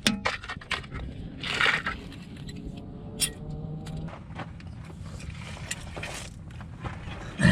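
Metal parts and tools being handled for a muffler clamp install: scattered clinks, knocks and scrapes, with a louder knock near the end.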